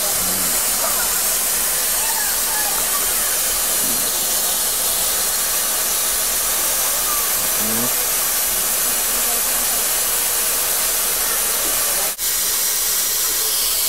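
Steam hissing steadily from an ABT rack steam locomotive, with a momentary break about twelve seconds in.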